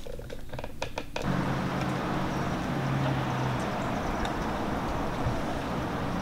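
Outdoor ambience: a steady hiss with a steady low hum, coming in abruptly about a second in after a few soft clicks.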